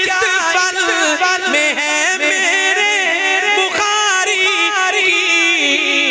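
A man's voice singing a naat through a microphone and sound system: a long ornamented run that keeps turning and sliding in pitch.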